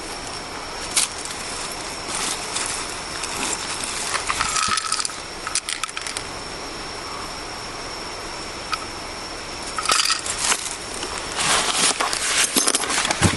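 Rustling and light clattering with scattered clicks, as of things being handled, over a steady high-pitched whine.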